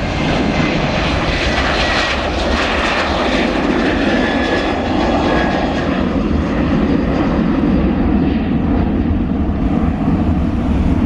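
Jet engines of a Malindo Air Boeing 737 Next Generation (CFM56 turbofans) at take-off thrust, a loud, steady roar as the airliner rotates and climbs out. A faint high whine over the roar slowly falls in pitch during the first few seconds.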